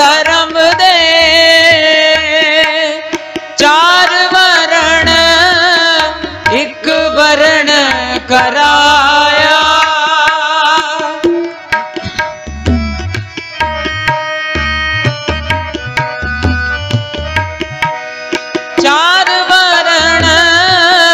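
Shabad kirtan music: harmoniums play the melody over a steady tabla rhythm. Drawn-out wavering melodic lines run through the first half and return near the end; in the middle the harmonium holds steadier chords over the tabla.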